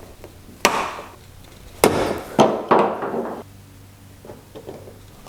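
A handful of sharp knocks with short ringing tails from hand work on the car's jacking points as the jack pads are changed: one a little under a second in, then three more close together between about two and three seconds in.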